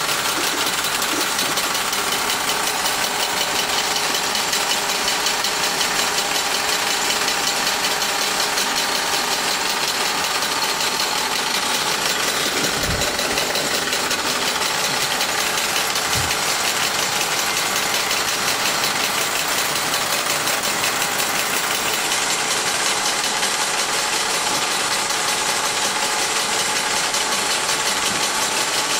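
Wilesco D141 toy steam engine running, its line shafting, belts and tin workman figures clattering in a dense, fast, steady mechanical rattle that sounds like a small workshop. About halfway through there are two dull low bumps.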